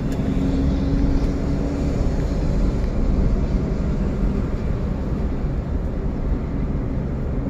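Steady low rumble of road and engine noise heard inside a moving car's cabin, with a faint hum over it that stops about two seconds in.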